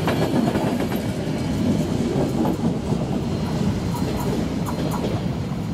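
Intercity passenger coaches rolling past on the rails: a steady rumble of wheels with scattered clicks, carrying on after the last coach has gone by.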